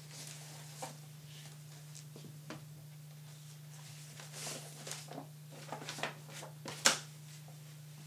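Paper and stiff card being handled: a large cardboard portfolio opened and its sheets shuffled, in scattered rustles and soft knocks, with a sharp snap near the end, the loudest sound. A steady low hum runs underneath.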